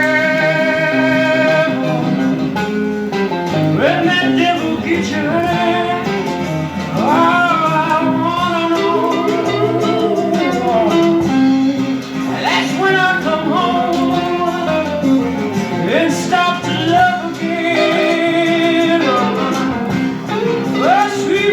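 Blues-rock song: a male singer holding long notes with wide vibrato, often sliding up into them, over guitar accompaniment.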